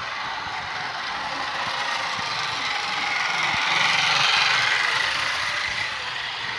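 Small electric motor and gears of a battery-powered toy train whirring steadily as it runs on its plastic track, growing louder around the middle as it passes close.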